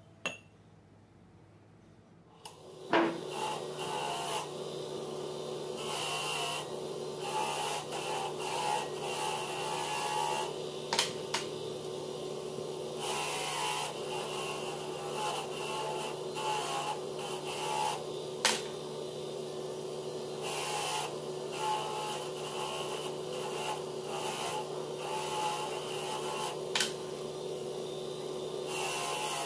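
Electric angle grinder switched on about three seconds in, then running steadily with its abrasive disc grinding small steel pieces, the grinding uneven, with a few sharp ticks.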